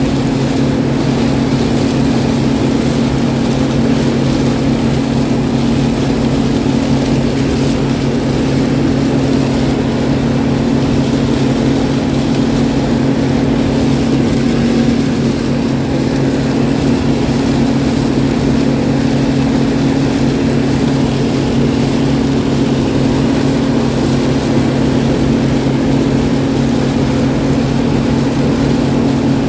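Farm harvest machinery's engine running at a steady speed under load: a constant low drone that doesn't change pitch.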